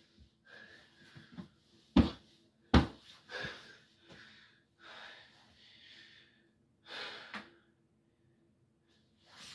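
Two sharp thumps of a body on a spring mattress, about two and three seconds in, then a man's breaths, several in a row.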